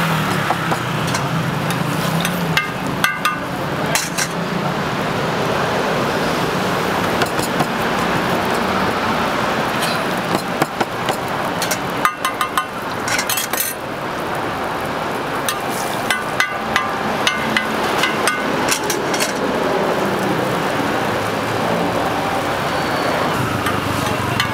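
Metal spatula tapping and clinking against a flat steel roti griddle in irregular clusters of sharp knocks, over steady street traffic.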